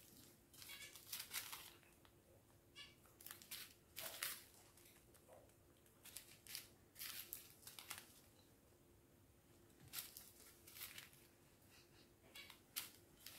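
Small plastic zip-lock bags of diamond-painting drills crinkling and rustling in short, scattered bursts as they are picked up and sorted by hand.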